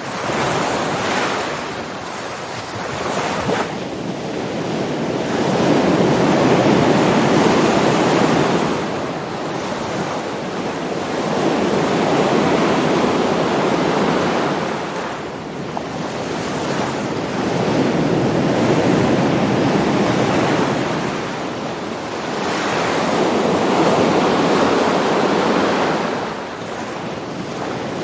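Ocean waves washing in and out, a continuous rush that swells and eases about every five or six seconds.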